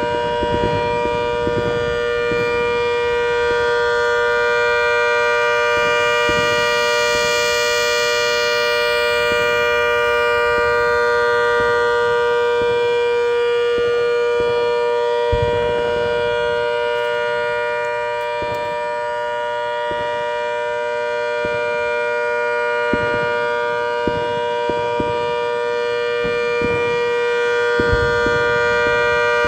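Rotating siren holding a steady two-note alert tone rich in overtones. It swells and fades gently as the horn turns toward and away, with a few short thumps in the background.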